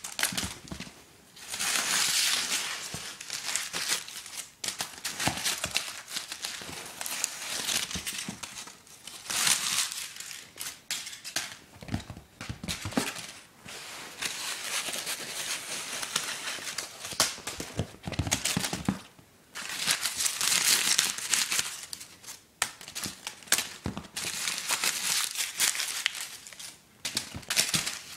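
A torn-out piece of paper crinkling and rustling in repeated bursts as a kitten pounces on it and bats it about, with short pauses between bursts and a few soft knocks.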